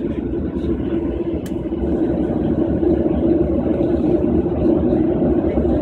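Jet airliner's engines heard inside the cabin over the wing: a steady rumble and hum that grows louder about two seconds in as the engines are brought up for take-off on the runway.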